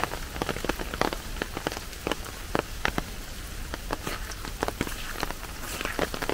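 Rain falling, with many irregular, sharp drop hits close by over a steady wash of rain.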